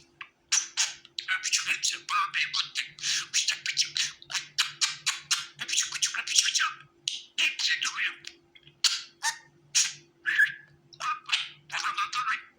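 Budgerigars chattering and warbling: a fast, busy string of short chirps and squawks broken by brief pauses, over a faint steady hum.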